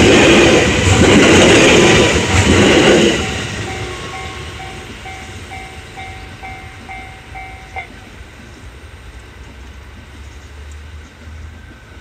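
JR West 321 series electric train passing over a Japanese level crossing, loud for the first three seconds and then fading away. The crossing's electronic warning bell is then heard on its own, ringing its kan-kan beat about three times a second, and stops abruptly about eight seconds in as the crossing clears.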